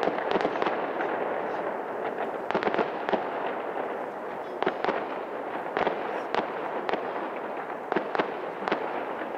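Aerial fireworks bursting: a run of irregular sharp bangs and pops, sometimes several in quick succession, over a steady noisy background.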